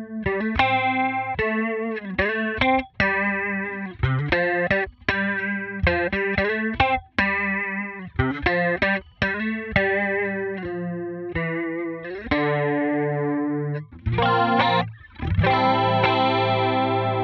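Clean electric guitar played through a Line 6 Helix with compression and its stereo 70s Chorus model: a run of picked single notes, a few a second, then one note held and ringing out near the end.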